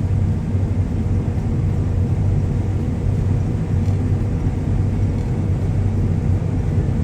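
Steady low drone of a heavy harvest machine's diesel engine running at constant speed, with a strong even hum and no change in pitch.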